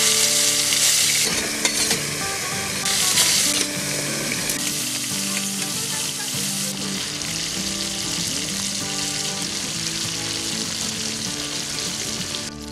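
Pieces of koi fish (climbing perch) frying in hot oil in a kadai: a steady sizzle, loudest in the first second or so.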